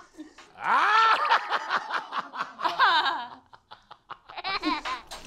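People laughing, with a quick run of short laughs near the end.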